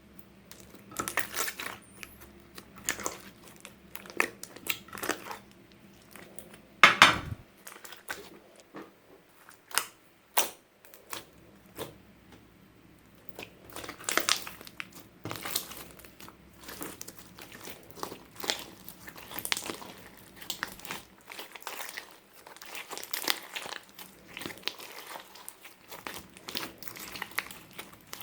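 Clear slime being squished, stretched and folded by hand, making irregular crackling and popping clicks. There is a louder pop about seven seconds in and another about ten seconds in.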